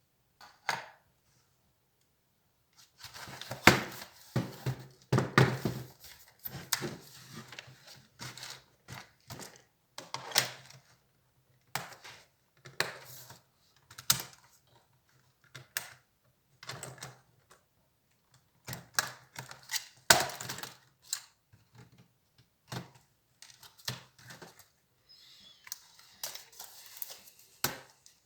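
Irregular clicks, taps and clatter from the plastic and metal parts of an HP Compaq 6910p laptop being handled and pried apart during disassembly, with short quiet gaps between.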